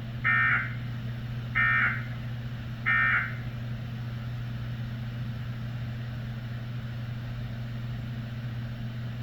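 Emergency Alert System end-of-message signal: three short bursts of SAME digital data tones, each about a third of a second and about a second and a quarter apart, marking the close of the alert. A steady low hum runs underneath and carries on after the bursts.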